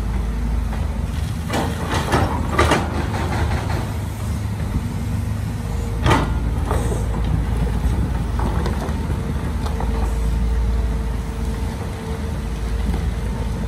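Diesel engine of heavy construction machinery running steadily. A cluster of clanks and rattles comes about two seconds in, and a single sharp bang about six seconds in.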